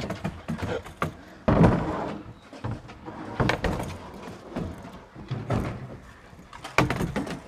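Irregular knocks, thumps and scraping against hollow plastic playground equipment as people clamber through it, with one heavy thump about a second and a half in.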